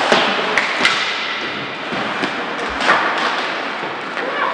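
Sharp cracks of hockey sticks and puck striking in an ice rink, several in a row with the loudest just after the start and about three seconds in, over a steady rink hiss.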